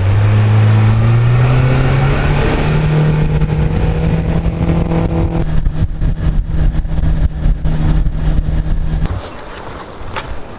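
Jet boat engine revving up and running steadily at speed, its pitch climbing over the first couple of seconds; it throttles back about nine seconds in.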